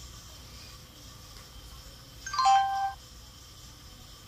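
Camcorder power-on chime from its built-in speaker: a short electronic jingle of a few stepping notes, under a second long, about two seconds in.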